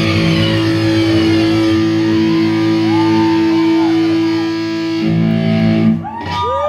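Distorted electric guitar through an amplifier, holding a long ringing note with string bends that rise and fall in pitch, over cymbal wash that fades early on. About six seconds in the sound briefly drops, and further bends follow.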